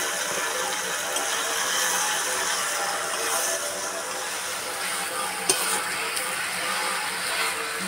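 Chicken sizzling and frying in a kadai as a spatula stirs and scrapes it, with a sharp knock of the spatula on the pan about five and a half seconds in. Puja music and voice from village loudspeakers sound steadily underneath.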